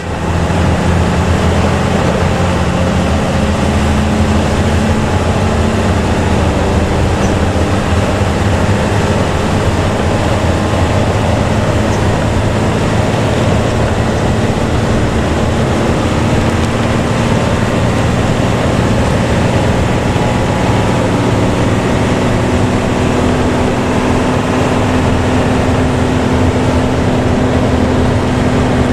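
Intercity bus engine and its growling 'ngorok' exhaust running steadily under way: a low drone whose pitch drifts slightly, over road and tyre noise.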